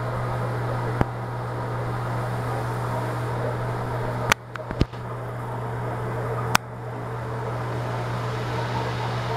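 Ceiling-mounted bathroom exhaust fan running: a steady low hum with an even rush of air. A few sharp clicks break in, one about a second in, a small cluster about halfway, and one about two-thirds through.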